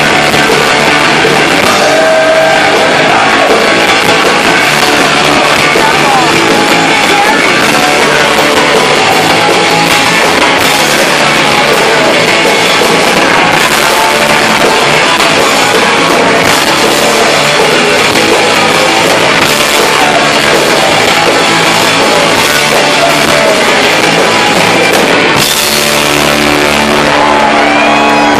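Live punk rock band playing loud, with electric guitars, drums and a singer. About 25 seconds in, the playing changes to a held, ringing chord.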